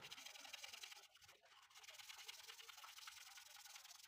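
Near silence: faint room tone with a few very weak scratchy ticks.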